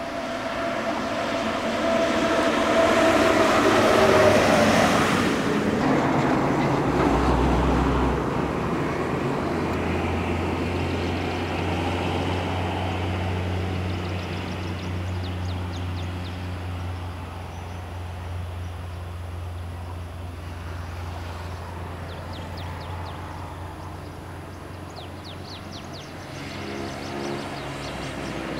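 Intercity coach driving past at speed: engine and tyre noise swells to a peak a few seconds in, with the engine note dropping in pitch as it goes by, then fades into a steady low drone. Near the end the engine of another approaching coach rises again.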